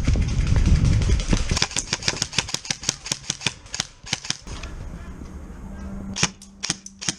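Airsoft guns firing single shots, a quick train of sharp cracks about four or five a second, then a few spaced shots near the end. A low rumble from movement on the camera comes in the first second.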